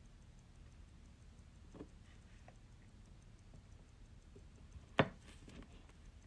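Small, irregular clicks and taps of brass tweezers on a wristwatch movement, with one sharper click about five seconds in.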